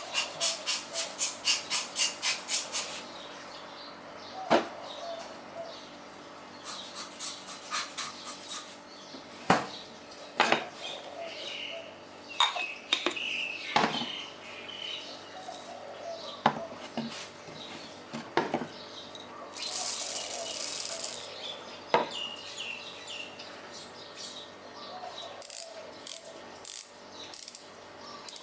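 Handling noises: runs of quick rhythmic scraping strokes, about four or five a second, with scattered sharp knocks and clicks and a brief hiss near the two-thirds mark.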